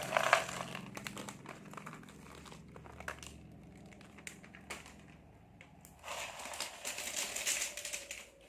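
Plastic snack packets crinkling as they are handled and opened. There is a burst right at the start and a longer stretch from about six seconds in, with quieter scattered crackles between.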